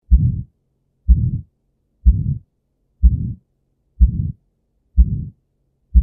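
Heart sounds with the systolic murmur of aortic stenosis. A low beat comes about once a second, each a sharp thump that trails off into a short murmur.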